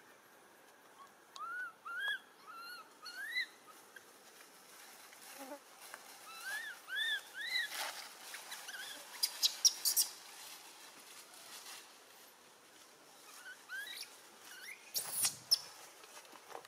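Short, high, arched chirping calls from a small animal, in two runs of three or four: one about a second in, another about six seconds in. Sharp clicks come near ten seconds, the loudest moment, and a brief rustle comes near fifteen seconds.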